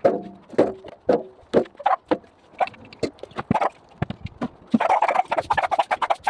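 A run of short, irregular knocks and clatters that thickens into rapid clattering about five seconds in.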